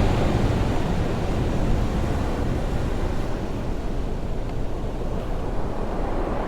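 Ocean surf washing over rocks: a steady, heavy rush of water with no single distinct crash, slowly easing off.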